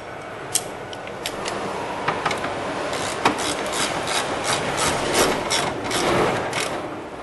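Hand ratchet tightening a battery hold-down bracket bolt: scraping and scattered clicks of the tool on the bolt, then an even run of ratchet clicks about three a second for several seconds from about three seconds in.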